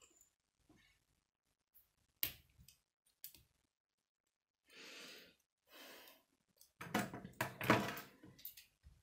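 K'nex plastic rods and connectors clicking and snapping as they are handled and fitted together by hand, with scattered sharp clicks. Near the end comes a denser, louder run of clicking and rattling as the pieces are moved about and set down on a wooden table.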